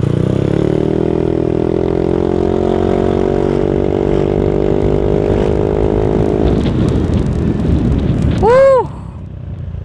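Yamaha Aerox 155 scooter's single-cylinder engine through an aftermarket R9 exhaust, pulling hard from low speed. The note climbs in the first second, then holds at a steady pitch while the scooter gathers speed, as its automatic transmission keeps the engine speed steady, and fades after about six and a half seconds. Near the end a brief, loud tone rises and falls, and then the engine sound drops away.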